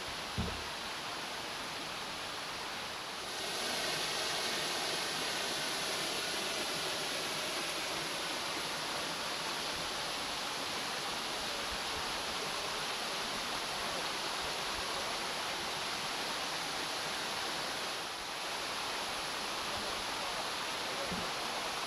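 Waterfall: a steady rush of falling water, with a short thump about half a second in. The rush gets louder and brighter about three seconds in.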